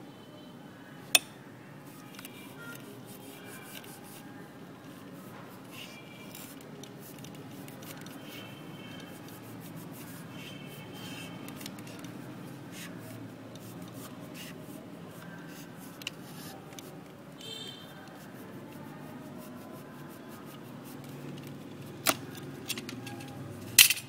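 Utility knife blade cutting and scraping into a wooden chopstick on a wooden board, a faint steady rasping. Sharp clicks sound about a second in and twice near the end, the last the loudest.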